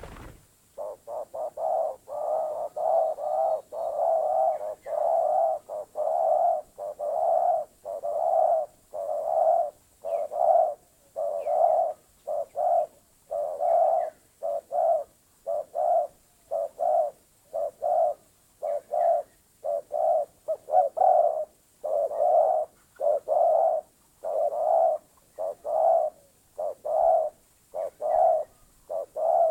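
Spotted dove (terkukur) cooing over and over: a steady run of short coo notes, about one to two a second, separated by brief gaps.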